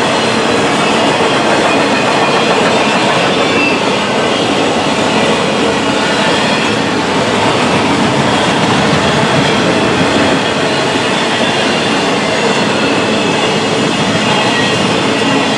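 Empty intermodal flatcars of a Norfolk Southern freight train rolling past: a steady, loud rumble and rattle of steel wheels on rail, with faint high wheel squeal at times.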